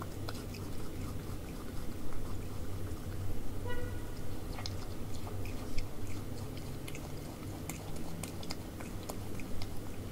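Common brushtail possum chewing food: many small clicks and crunches from its mouth, over a steady low hum. A brief pitched tone sounds about four seconds in.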